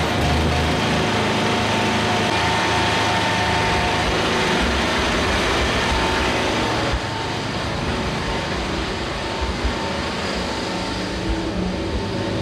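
Generator engine running steadily, heard after its repair. It becomes slightly quieter about seven seconds in.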